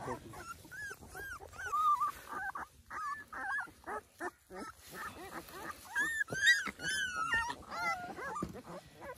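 Young puppies crying in rapid, high-pitched whines and squeals while they are handled. The cries are loudest and highest about six to seven seconds in.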